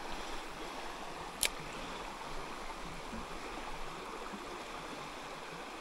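Shallow creek running over a stony riffle: a steady rush and burble of water, with one short sharp click about a second and a half in.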